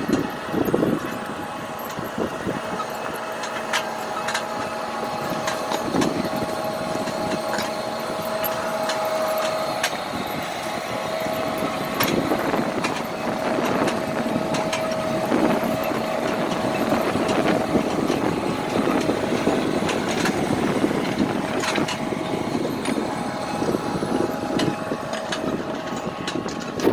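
Tractor engine running steadily under load as it pulls a disc ridging implement through stony soil, with a steady whine in the engine noise and scattered clicks and knocks from the implement working the ground.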